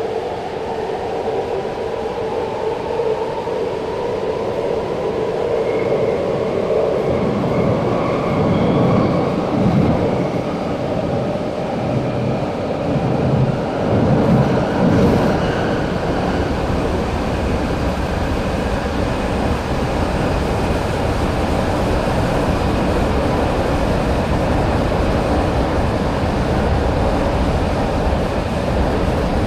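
Alstom Metropolis Sydney Metro train heard from inside the passenger car while under way: an electric traction motor whine rises in pitch over the first several seconds as the train gathers speed. A low rumble then builds and settles into steady running noise.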